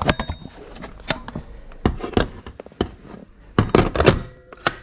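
Stainless steel QuickLok launching-wheel bracket clacking and clunking against its transom mount as it is handled and slotted into place. The sound is a string of sharp metal knocks and clicks, loudest in a quick cluster a little past halfway.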